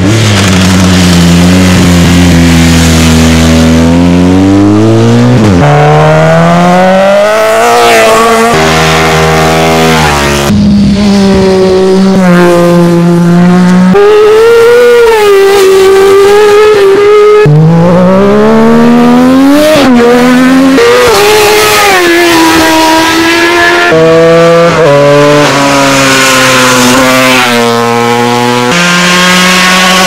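Racing motorcycles accelerating hard uphill, one after another, recorded from the roadside. Each engine's pitch climbs and then drops sharply at every gear change. The set includes a BMW 1250 twin and a Kawasaki 600.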